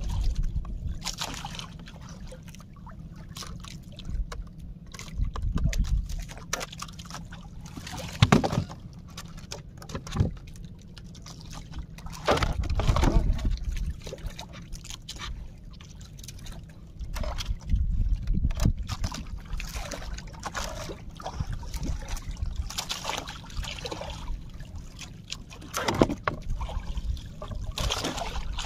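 Seawater sloshing and splashing around a small fishing boat in irregular bursts every few seconds, with trickling water between them, over a steady low rumble.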